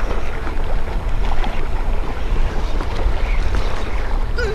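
Steady wind noise on the microphone, with sea waves washing against the rocks.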